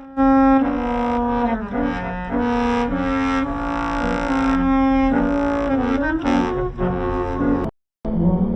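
Basuri musical air horn on a bus playing a tune: several brass-like tones stepping up and down in pitch over a low rumble. Near the end it cuts off sharply, and after a brief gap horn tones start again.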